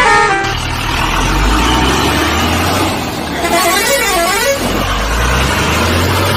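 Low, steady engine rumble like a truck's, opening with a brief horn-like tone and broken about three and a half seconds in by a quick up-and-down warbling tone.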